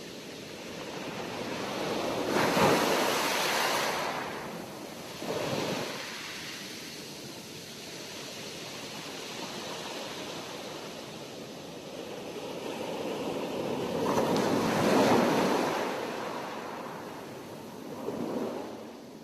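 Sea waves washing onto a shore. Two large waves surge and break, about three seconds in and again about fifteen seconds in, and each is followed a couple of seconds later by a smaller splash.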